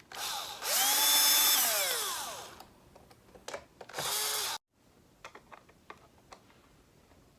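Cordless power drill driving the mounting screws that fix a wall switch into its box: one run of about two seconds whose whine falls in pitch as it slows, then a second short burst about four seconds in that stops abruptly, followed by a few light clicks.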